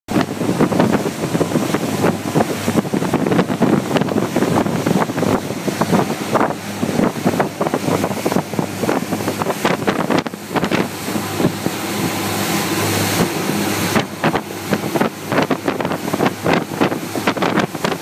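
Wind buffeting the microphone in irregular gusts aboard a fishing cruiser running at speed, over the steady low drone of its engine and the rush of its wake.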